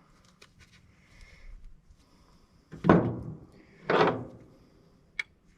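Two loud clunks about a second apart as scrap parts are handled, each dying away quickly, then a short sharp click near the end.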